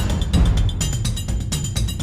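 Music with deep, heavy drum hits in a steady beat.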